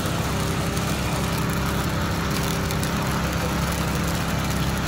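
Steady low motor hum, unchanging, like an engine or electric motor running.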